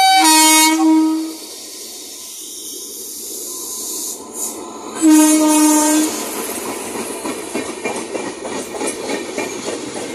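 Electric locomotive's horn sounding twice as the express passes at speed: one blast of just over a second at the start and another about five seconds in. Between and after the blasts, the steady rumble and rapid wheel clatter of the passing coaches, louder after the second blast.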